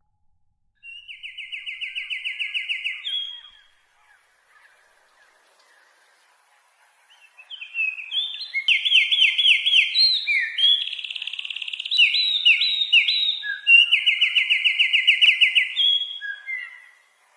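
A songbird singing: a fast trill of rapidly repeated notes for about two seconds, a pause, then from about seven seconds in a longer varied song of trills and short whistled notes.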